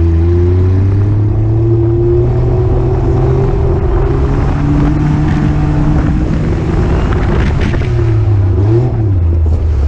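Daihatsu Mira's engine running at steady, fairly high revs, heard from on board the car as it laps a dirt track, with a brief dip and pick-up in revs near the end.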